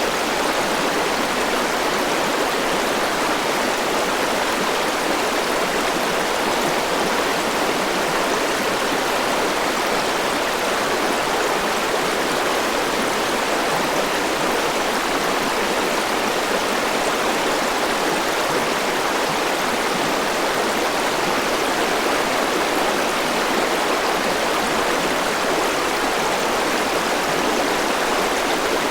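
Forest river flowing over rocks, a steady rushing of water without breaks.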